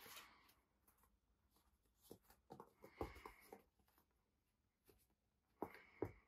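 Faint scuffling and soft taps of a toy poodle puppy's paws on a cushioned floor mat as it pounces on and mouths a rope chew toy, with a cluster of taps about two to three seconds in and two louder knocks near the end.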